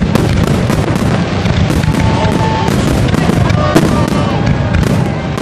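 Aerial fireworks display with shells bursting in rapid succession: a dense run of cracks and booms, several a second, with a few short wavering tones over them.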